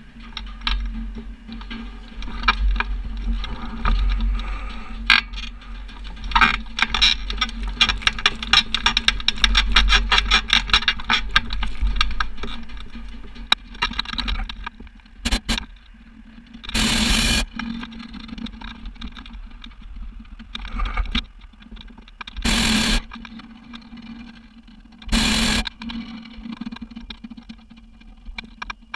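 Hot air balloon flight: dense crackling and ticking through the first half, then three short blasts of the propane burner in the second half, each under a second long.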